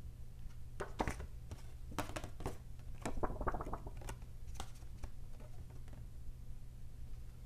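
Stiff paper insert cards being handled and flipped over: a scatter of crisp rustles and light taps, busiest in the middle, over a steady low hum.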